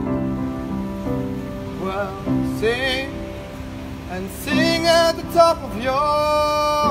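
A man singing to his own piano accompaniment: piano chords at first, then his voice comes in with vibrato about two seconds in and ends on a long held note.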